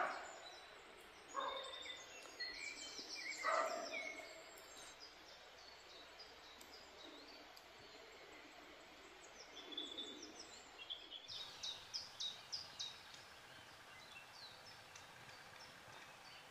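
Woodland birdsong: several small birds chirping and singing over a faint outdoor background, with a few louder calls in the first four seconds.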